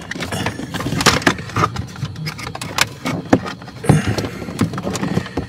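Plastic clips and panel of a cabin air filter cover clicking and knocking irregularly as fingers pry at a stiff retaining clip.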